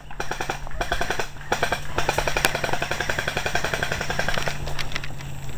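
Airsoft electric gun firing on full auto as a rapid, even stream of shots: two short bursts, then a longer burst of about three seconds.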